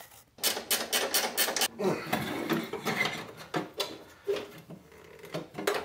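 Quick, rapid clicking of a ratchet wrench, followed by irregular knocks and metal rattles of hand tools, as a bracket is unbolted and worked out of a car's engine-bay ECU cubby.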